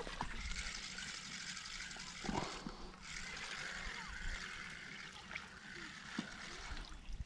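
Spinning reel being cranked to wind in line: a steady whirring with fine rapid ticking, in two runs with a short break about two and a half seconds in.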